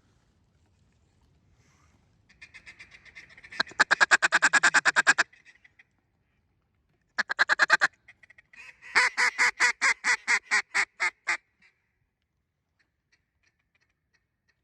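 Mallard duck call blown in runs of quacks: a rapid run that starts soft and turns loud, a short quick burst, then a longer string of about a dozen loud quacks that tails off.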